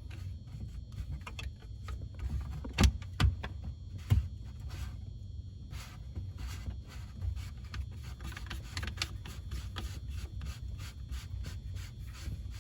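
Knocks and clicks of drain pipe parts being handled and fitted as a sink P-trap is put back on, with three sharper knocks about three to four seconds in over a low steady rumble.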